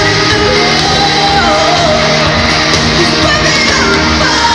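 Loud amplified live pop music from a band with a lead vocal, heard from the crowd in a large arena hall.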